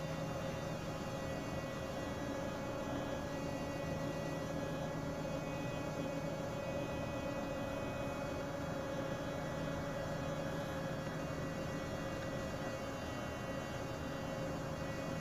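Steady machinery hum of a ship's engine room, several steady tones held evenly, with no knocks or changes.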